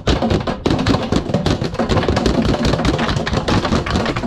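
A large halibut thrashing inside a closed hatch compartment on a boat deck: a rapid, irregular drumming of thumps and slaps against the lid and walls that does not let up.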